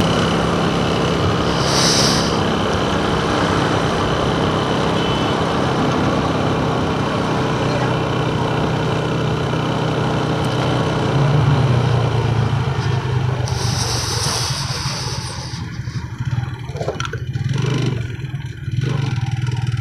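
Motorcycle being ridden, its engine running steadily under wind and road noise on the microphone. The engine note grows louder about eleven seconds in and eases off near the end, with two short high hisses along the way.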